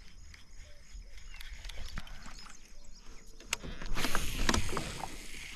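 A cast with a baitcasting reel: about four seconds in the spool whirs loudly for about a second as line pays out, after faint clicks and handling noise from the kayak.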